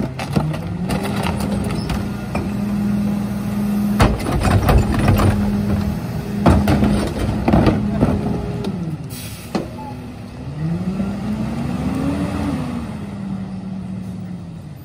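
Heil rear-loader garbage truck's diesel engine revving up and holding at a raised, steady speed, with sharp bangs of wheeled trash carts being tipped and knocked against the rear hopper. The engine drops back a little after eight seconds, then revs up again and settles.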